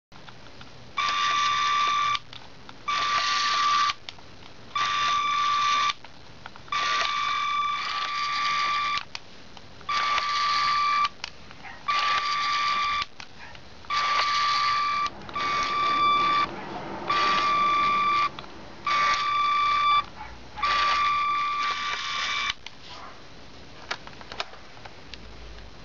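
Electronic beeping in repeated bursts, each about a second long and coming roughly every two seconds, the same steady tones each time, over a faint steady hiss.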